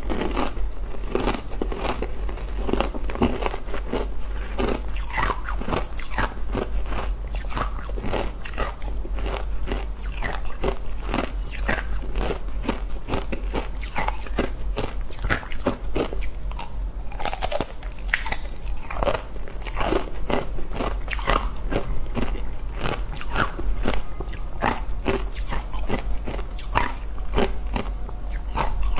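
Close-up crunching and chewing of matcha-coated ice: a dense, continuous run of crisp bites and crunches as the ice is broken between the teeth, with a low steady hum underneath.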